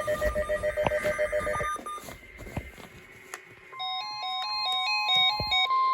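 Radio audio with a pattern of rapid electronic tones and a short stepping melody of beeps. About four seconds in, a single steady alert tone starts and keeps sounding. It is the tone of an emergency weather alert broadcast.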